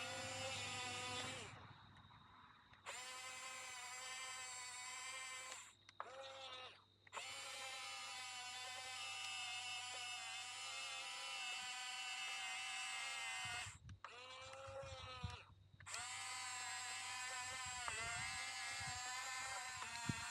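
Small geared electric motors of a Huina RC bulldozer whining as it is driven, the pitch wavering with load. The motors stop briefly three times, about a second and a half in, around six seconds in and around fourteen seconds in, and each time pick up again with a rising whine.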